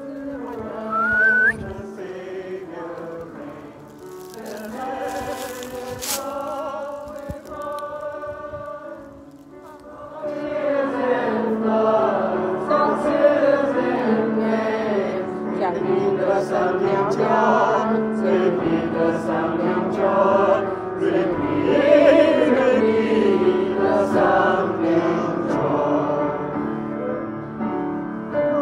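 Background choral music: a choir singing slow, held notes, becoming fuller and louder about ten seconds in.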